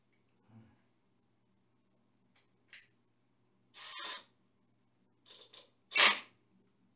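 Cordless drill's keyless chuck being twisted and worked by hand to change the bit: a few short rasping clicks, the loudest near the end.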